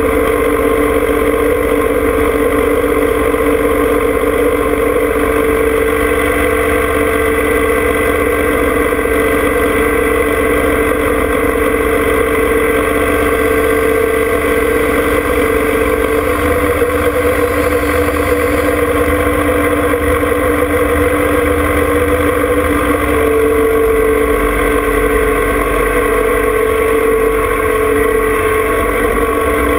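John Deere 2305 compact tractor's three-cylinder diesel engine idling steadily while the tractor stands still.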